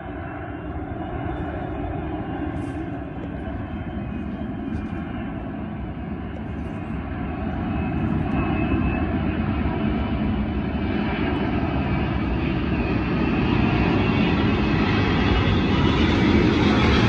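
Four-engine Airbus A380 jet airliner flying in low and passing nearly overhead. Its steady jet engine rumble grows steadily louder and brighter as it comes closer.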